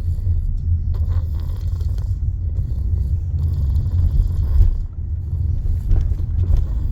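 A person snoring heavily: a steady low rumble, with rasping breaths coming roughly every three seconds.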